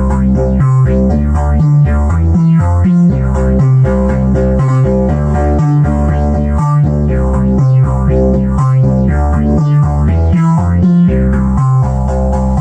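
Synthesizer music from Behringer MS-1 and Pro-1 analog synths: a steady repeating bass pattern with higher synth notes over it, run through a digital multi-effects processor.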